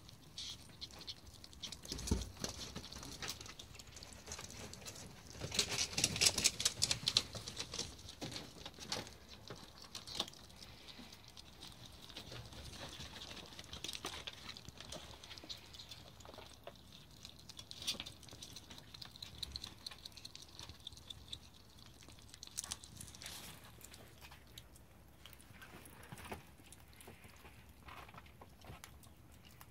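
Several ferrets chewing and crunching raw bone-in chicken wings and legs, making a steady run of small clicks and crackles. The chewing is busiest, with a quick run of clicks, about six seconds in.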